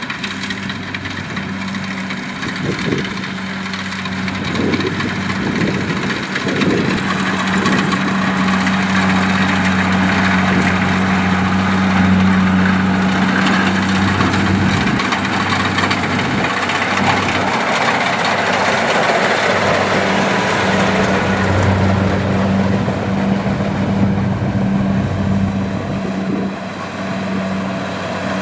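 Kubota DC70 combine harvester working in a rice field: its diesel engine runs with a steady low hum, under a constant rushing clatter from the cutting and threshing gear that grows louder a few seconds in and eases slightly near the end.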